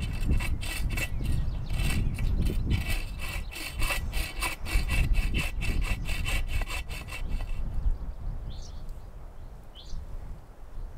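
A hand saw cutting through firewood in quick, even back-and-forth strokes, stopping about eight seconds in. A few bird chirps follow.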